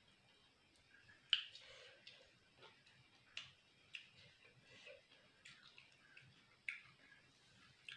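Close-miked chewing of crispy fried food: faint, sharp crunches and mouth clicks at uneven intervals, about six of them, the loudest a little over a second in.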